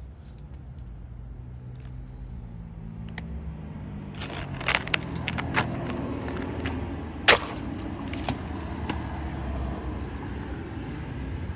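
Gray squirrel gnawing and crunching on pieces of ice: a run of sharp cracks and clicks from about four to nine seconds in, the loudest about seven seconds in, over a steady low rumble.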